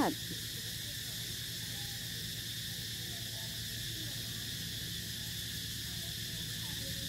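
Quiet outdoor background: a steady low hum and an even hiss, with faint short pitched sounds now and then.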